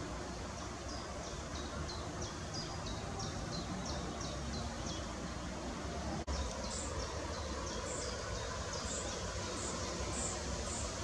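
Small birds peeping: short, high-pitched notes repeated about three a second, then, after a brief break about six seconds in, higher single peeps every half second or so, over a steady background hiss.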